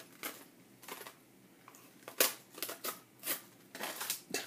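Paper card rustling and clicking as it is worked free of a metal eyelet-setting pliers (Crop-A-Dile) that it has stuck to, with short sharp clacks from the tool. There are about seven separate clicks, the loudest about two seconds in.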